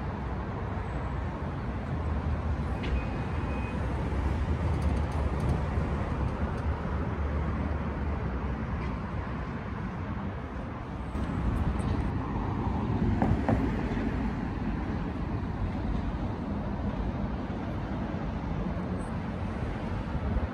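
Steady road traffic rumble, swelling twice as vehicles pass.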